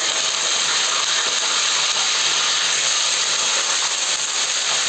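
Steady, even hiss of chicken cooking in a pot on the stove, unbroken and level throughout.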